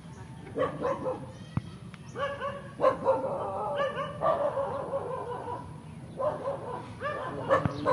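A series of high-pitched animal calls, short ones about every second and one longer call about four seconds in that slowly falls in pitch.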